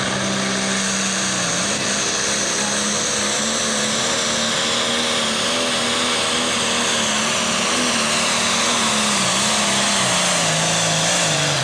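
John Deere Pro Stock pulling tractor's turbocharged diesel engine at full power dragging a weight-transfer sled, with a high whine over the engine note. The engine pitch wavers and drops over the last couple of seconds as the sled loads it down.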